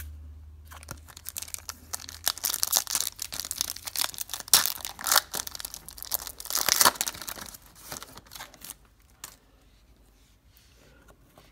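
A trading-card pack's wrapper being torn open and crinkled by hand: a dense, irregular crackle that is loudest in the middle and dies down to a faint rustle after about eight seconds.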